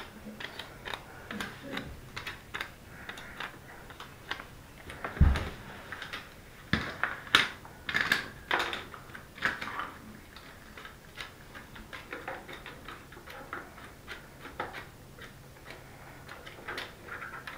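Hard plastic toy pieces clicking, tapping and rattling as a plastic playset and its small parts are handled and fitted together, with a dull thump about five seconds in.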